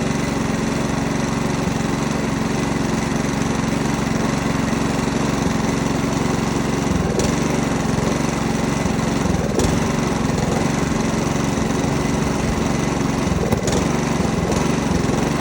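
Petrol lawnmower engine running steadily at a constant speed. It keeps going without stalling, which the owner takes as a sign that the carburettor clean, new spark plug and fresh fuel have cured its habit of dying after about 30 seconds.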